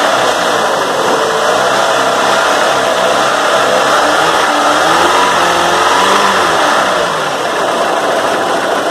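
Chrysler PT Cruiser four-cylinder engine running, its speed rising and falling. The owner says the engine needs tuning and a scan to identify its faults.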